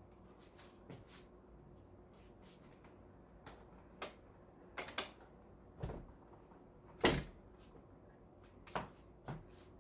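Scattered knocks and clunks from a window air conditioner being fitted into a window, the loudest about seven seconds in.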